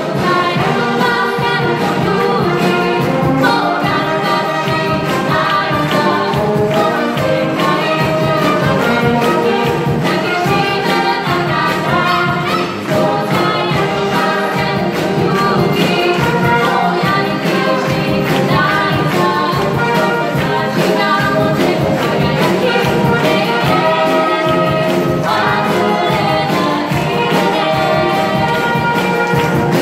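A youth wind band playing live, with brass to the fore; the music is steady and continuous.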